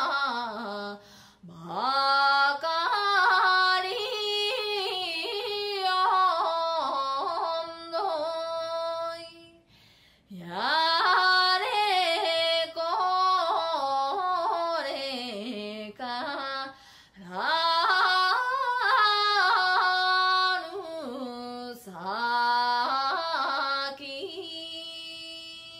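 A recorded song by a female Amami shima-uta singer: one voice sings long, ornamented phrases that slide in pitch and flip up into a high falsetto, with short breaks between phrases. The last phrase fades out near the end.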